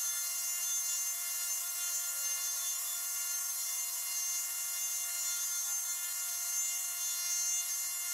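Grizzly benchtop mini mill's end mill cutting into an aluminum block: a steady spindle whine with an even scraping cutting noise.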